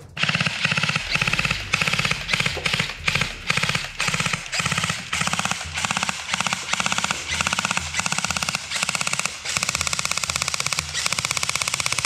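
Automatic gunfire: repeated bursts of rapid fire, one after another with brief breaks, filling the whole stretch.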